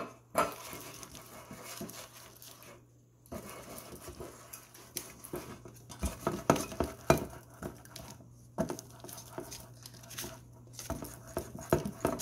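Paper towel rubbing butter around the cups of a metal muffin tin: irregular rustling and scraping with light clicks and knocks of the tin.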